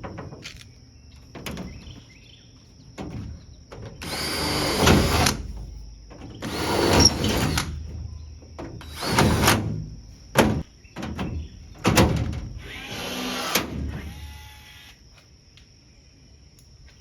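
Power drill running in four short bursts of about a second each, with sharp clicks and knocks of metal parts being handled between them.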